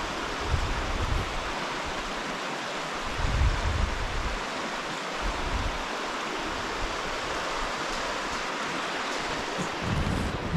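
Rushing river water, a steady, even hiss, with a few brief low rumbles about half a second in and again around three and a half seconds.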